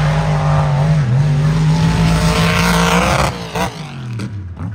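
Mega truck engine held at high revs for about three seconds, then off the throttle with the pitch falling, followed by a few short, choppy blips.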